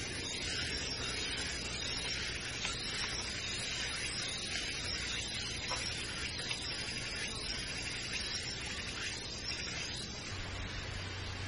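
Steady high hiss of forest ambience, with light rustling as leafy side twigs are pulled and broken off a felled green bamboo pole by hand.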